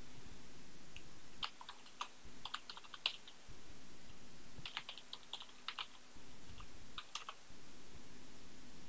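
Computer keyboard typing in three short bursts of keystrokes with pauses between.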